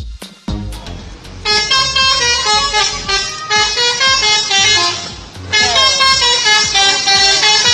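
Bus telolet horn: a set of tuned horns playing a quick melody of stepping notes, starting about a second and a half in and sounding in three phrases with short breaks between them.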